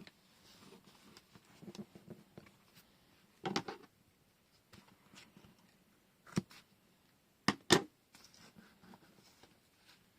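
Hands working with washi tape and paper: light rustling and handling, broken by four sharp snips or clicks, the loudest two close together about three-quarters of the way through.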